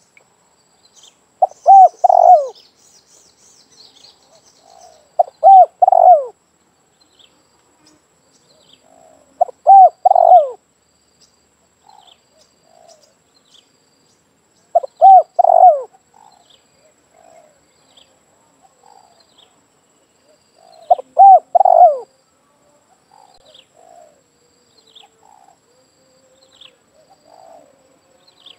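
Spotted dove cooing: a loud, short multi-note coo repeated five times, every four to six seconds, with fainter coos between.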